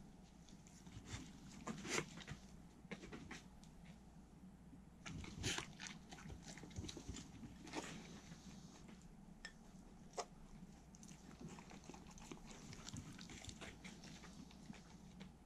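Welsh corgis chewing and licking at bits of pork held out in hands, with soft, irregular mouth clicks and lip smacks.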